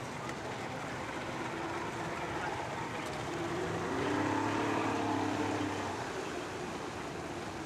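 Outboard motorboats and a jet ski passing, their engines running with a steady drone that grows louder about four seconds in and eases off after about six.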